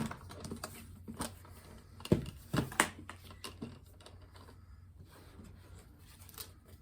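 Irregular clicks, knocks and rustles of a toy box and its packaging being handled and opened, loudest in a cluster about two to three seconds in, then fainter handling.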